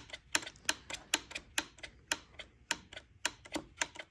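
Rapid, irregular clicking from the Homelite Super XL chainsaw's throttle trigger and throttle lock being worked, about four to six sharp clicks a second. The throttle had been stuck at half throttle and has just been freed.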